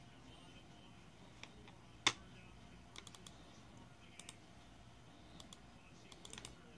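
Computer keyboard keys and mouse clicks, a few at a time with gaps between, with one louder click about two seconds in.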